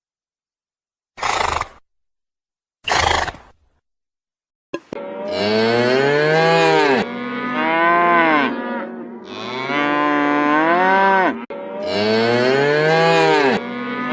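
Two short breathy snorts, then four long, loud bovine moos, each swelling and falling in pitch, following one another with hardly a break.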